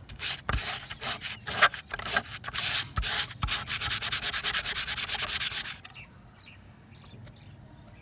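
Rapid back-and-forth abrasive rubbing on the metal blade of an old kitchen knife being restored, with a few dull bumps, stopping abruptly about six seconds in.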